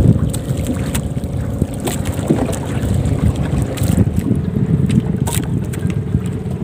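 Heavy wind rumble on the microphone aboard a small outrigger boat at sea, with a faint steady hum and a few short knocks and clicks.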